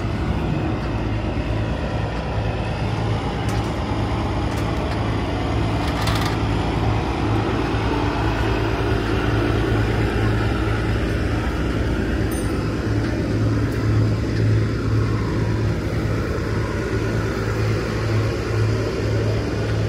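An engine running steadily, a low pulsing hum under general outdoor noise.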